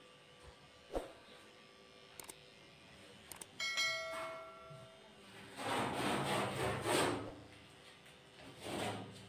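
Subscribe-button pop-up sound effect: quick clicks, then a ringing bell ding about three and a half seconds in, over the faint steady hum of electric dog clippers. Louder rustling noise comes in the second half.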